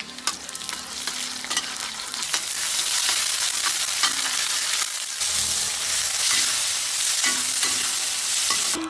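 Ingredients sizzling in hot oil in a frying pan: a steady loud hiss, with a spatula clicking and scraping against the pan as it stirs.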